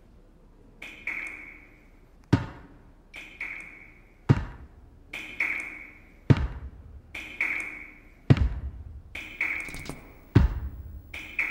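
Slow, even beat of water dripping, one drop about every second. The drops alternate between a ringing plink and a deeper thud.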